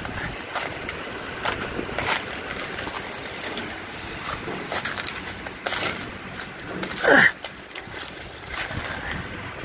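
Gloved hand scraping and scooping wet snow and ice off a steel mesh grating, with irregular crunches and crackles. About seven seconds in comes one short, loud squeak that falls steeply in pitch.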